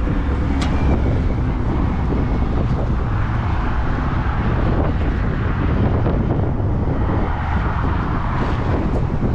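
Wind buffeting the microphone in a steady low rumble, with traffic on the bridge passing and swelling louder about three seconds in and again near the end.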